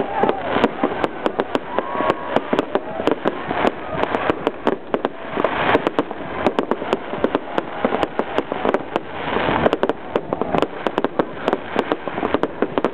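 Fireworks display: a dense, unbroken barrage of bangs and rapid crackling from many shells bursting at once, many reports a second with no pause.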